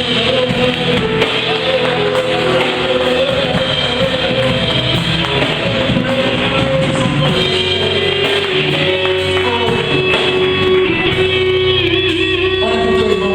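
Live worship band music with guitar prominent, playing continuously.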